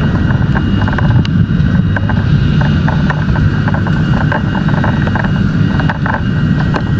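A heavy engine running steadily, a continuous loud low rumble, with a few light clicks over it.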